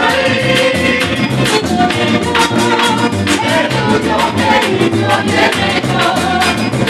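Live Venezuelan gaita music: voices singing together over strummed strings, a steady rattling percussion pattern and a pulsing low drum.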